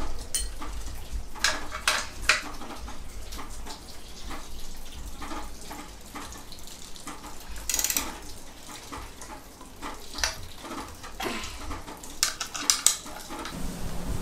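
Light clinks and knocks of hard objects being handled, scattered irregularly over a low steady hum, with a quick cluster of clicks near the end.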